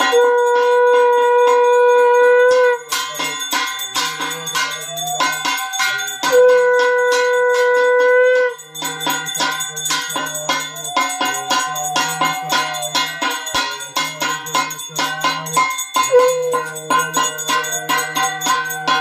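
A handheld puja bell rung rapidly and continuously while a conch shell (shankha) is blown: two loud, long steady blasts, each about two to three seconds, in the first half, then softer, bending notes later.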